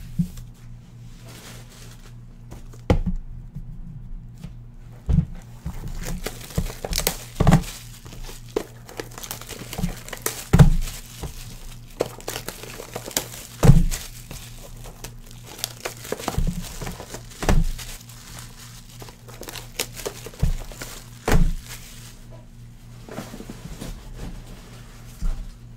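Cardboard boxes of trading cards being handled and stacked on a desk: packaging rustling and crinkling, with a series of sharp thunks as boxes are knocked and set down, about a dozen in all.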